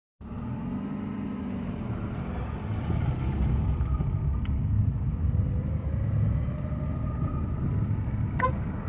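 Car driving on a wet road, heard from inside the cabin: a steady low rumble of engine and tyres, with a short click near the end.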